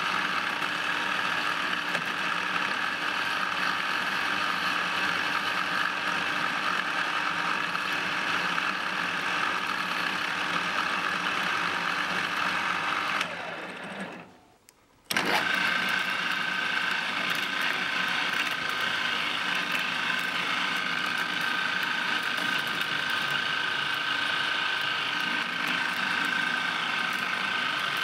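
Small CNC milling machine running steadily with its spindle spinning. It drops away for about a second and a half around the middle, then comes back with a steady high whine.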